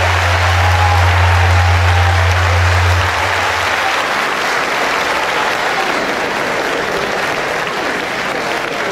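Audience applauding, with a steady low hum underneath for the first three seconds.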